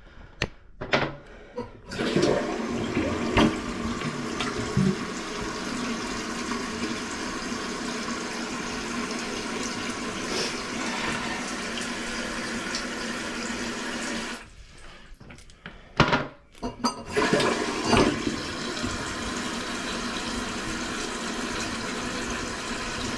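Toilet flushing, with water rushing steadily through the tank and bowl; it drops away briefly about fourteen seconds in, a knock follows, and the water runs again. The flush is weak, 'really not even flushing', which the plumber puts down to suction from a newly fitted flange that leaves the bowl underfilled.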